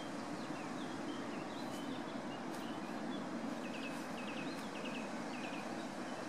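Steady rush of flowing river water, with small birds chirping over it; a quick run of repeated chirps comes about halfway through.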